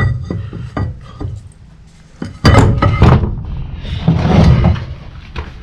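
Knocks and clunks of metal clutch parts being handled and set in place on the engine, with a few light clicks at first, two loud clunks about two and a half and three seconds in, and a rough scraping clatter around four seconds in.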